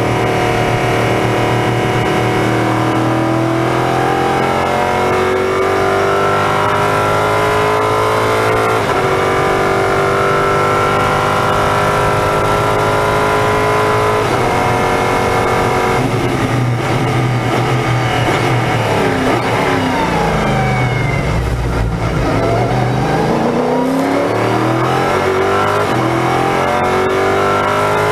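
LMP3 prototype's Nissan V8 heard from the cockpit at full throttle, revs held high and edging up through upshifts. About two-thirds through, the engine note drops steeply as the car brakes and downshifts, then climbs again as it accelerates away.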